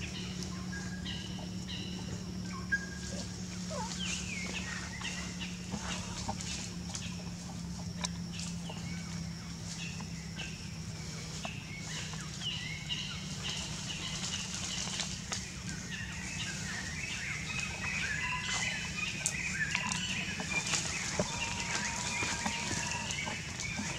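Forest ambience with many short, high-pitched chirping calls from animals, coming thicker in the last third, over a steady low hum.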